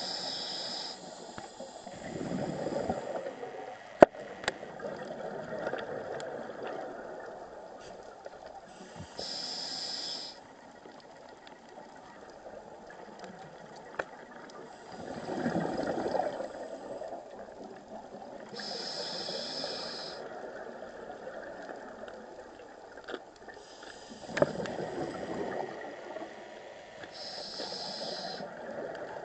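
Scuba regulator breathing underwater: a hiss on each inhalation and a rush of exhaled bubbles, in slow cycles several seconds apart. A sharp click about four seconds in.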